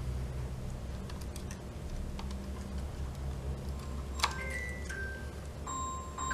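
Small clicks and taps of plastic and wire as the fuel gauge sending unit is fitted back onto a motorcycle fuel pump assembly, over a steady low hum. There is a sharper click about four seconds in. Near the end a simple melody of clear tones begins.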